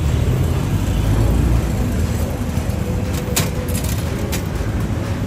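Steady rumble of road traffic, with two sharp clicks, one a little over three seconds in and another about a second later.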